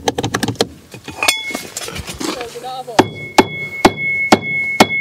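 Hammer striking metal: lighter clattering knocks at first, then, after about three seconds, five sharp ringing blows about two a second.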